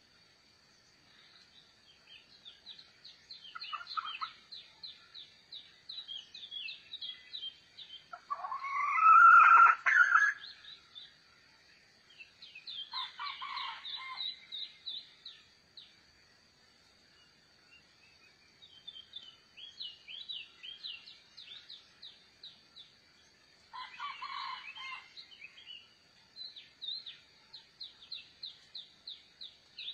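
A rooster crows once, loud and about two seconds long, around nine seconds in, with fainter calls about four, thirteen and twenty-four seconds in. Small birds chirp in quick runs of high notes throughout, over a steady high insect hum.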